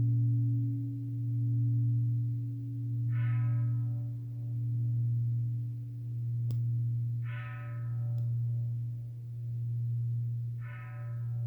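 Lingering hum of a large Buddhist temple bell (bonshō) after a strike. Its deep tone swells and fades about every second and a half as it slowly dies away. A few short, higher-pitched sounds come over it.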